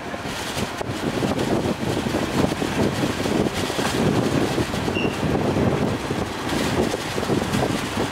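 Steady rumble of the fast ferry Majestic Kawanua II under way, with wind buffeting the microphone.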